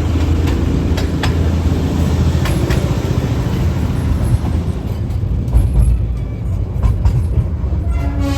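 Darjeeling Himalayan Railway toy train running, heard from inside a coach: a steady low rumble with scattered clicks and knocks. Near the end the train's horn starts to sound as one steady blast.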